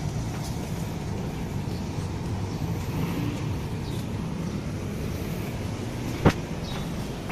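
Steady low background rumble with faint footsteps, and a single sharp knock near the end as a metal-framed glass door is passed through.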